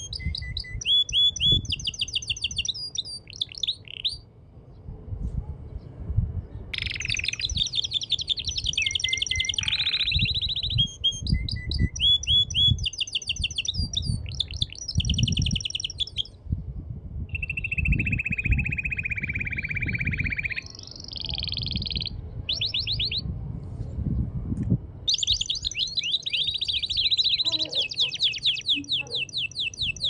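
Male domestic canary singing in long phrases of rapid trills and repeated chirping notes, broken by a few short pauses, with a lower, steady rolling trill a little past the middle and fast repeated notes near the end.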